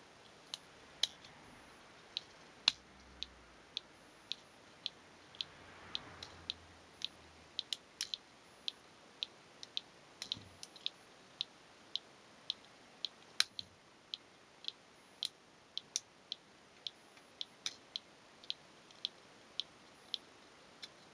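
Motorcycle disc lock giving off small, sharp clicks in a steady rhythm, a little under two a second, some louder than others: the abnormal noise the lock has developed.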